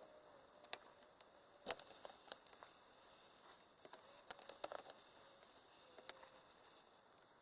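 Faint, scattered clicks and light taps of a laptop's plastic and metal parts being handled during a battery replacement, with a small cluster of quick ticks about halfway through.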